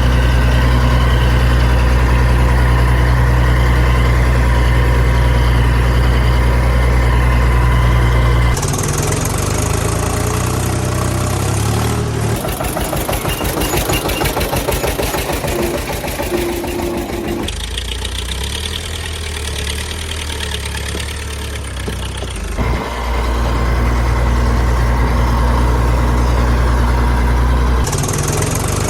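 Engine idling and running, in a series of segments that cut abruptly every four to five seconds. The first part is a steady low hum.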